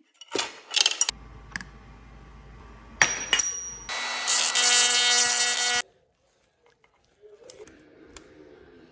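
Metallic clicks and clanks, then a power tool's motor whines for about two seconds and cuts off abruptly.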